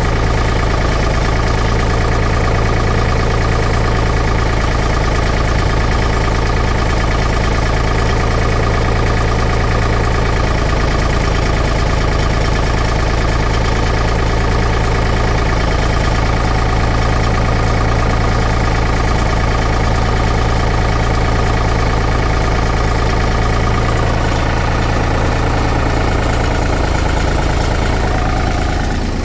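Large diesel-engine pump running at a steady idle, a constant low engine hum.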